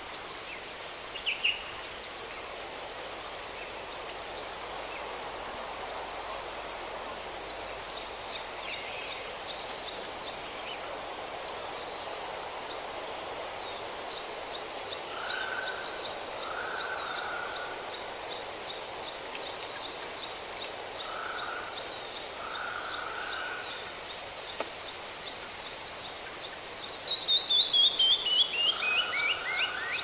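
A loud, high-pitched insect buzz, steady and finely pulsing, that cuts off suddenly about thirteen seconds in. After it come a fainter rapid high trill, short lower bird calls, and near the end a quick run of bird notes falling in pitch.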